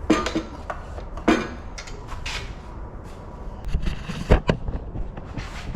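Tools and metal parts being handled on a shop bench: a string of sharp clicks and knocks, with a cluster of heavier thumps about four seconds in.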